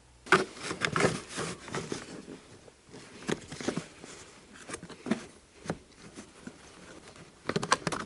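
Hard plastic seat-side trim cover being handled and fitted against the seat: irregular plastic clicks, taps and scrapes, growing busier near the end.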